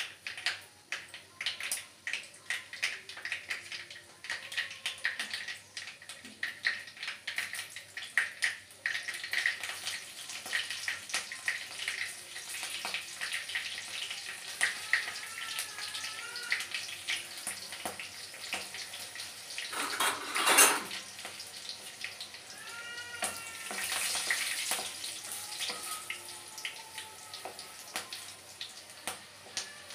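Whole spices and red chilli crackling and sizzling in hot oil in an aluminium kadhai: the tempering (tadka) stage of cooking. Dense pops fill the first half, with one louder burst about two-thirds through.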